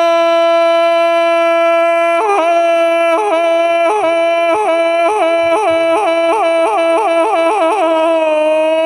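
Thai classical music accompanying a khon performance: a single high melody line holds one long note, then breaks into a run of quick dips in pitch that come faster and faster, and settles back onto the held note near the end.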